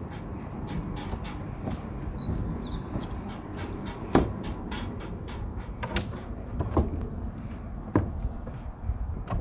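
A handful of sharp knocks and clicks at uneven intervals, the loudest about four seconds in and more around six and eight seconds, over a steady low rumble.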